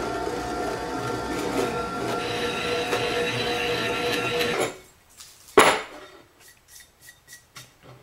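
Bench drill press running and cutting a hole through a metal plate. The drilling stops abruptly about four and a half seconds in, followed a second later by one sharp knock and then a few light clicks as the plate is handled.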